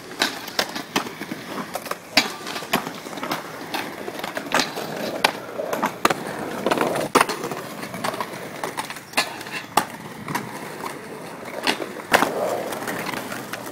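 Skateboard wheels rolling on concrete, with many sharp clacks scattered throughout as boards are popped, strike the metal rail and land.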